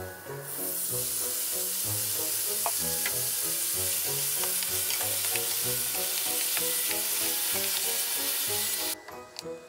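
Yakiniku sauce sizzling hard in a hot frying pan around seared daikon radish slices as tongs turn them to coat. The sizzle starts about half a second in and cuts off suddenly near the end.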